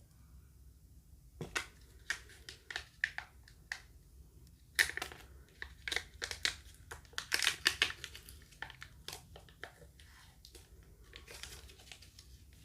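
Packaging wrapper being unwrapped by hand: crinkling and tearing in quick bursts of crackles, starting about a second and a half in and busiest in the middle.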